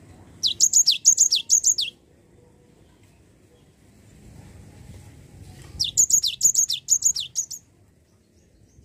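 Cinereous tit (gelatik batu) singing two bursts of its repeated phrase, a high note followed by a whistle that falls in pitch, over and over. The first burst comes near the start and lasts about a second and a half; the second begins about halfway through and runs a little longer.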